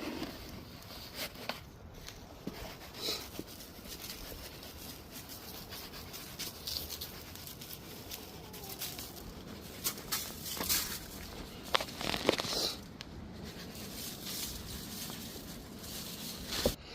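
Chickens moving about, with scattered light taps and rustles and a few faint short calls.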